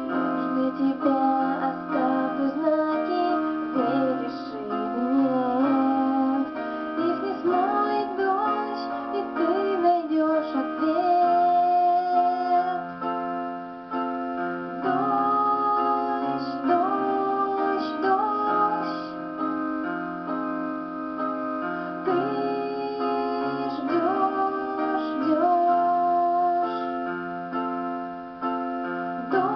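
A song: a female voice singing over a piano and keyboard accompaniment.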